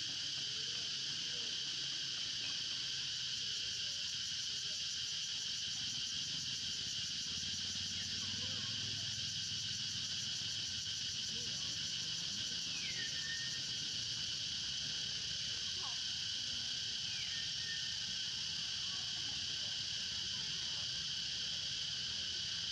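Dense forest insect chorus: a steady shrill buzzing that never lets up. Two short whistles slide downward, a few seconds apart, about halfway through.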